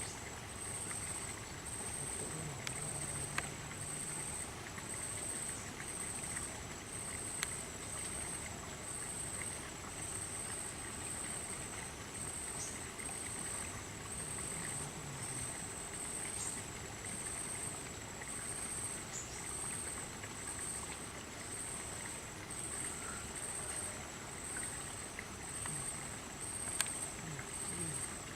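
Riverside ambience: an insect calls in even, high-pitched pulses, about one a second, over a steady hiss. A few sharp clicks sound, two early on and one near the end.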